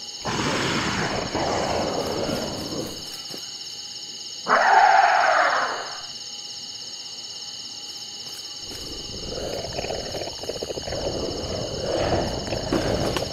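A monster's roar, one loud call about four and a half seconds in that lasts about a second and a half. Rough, noisy rustling comes before and after it, all over a steady high-pitched drone.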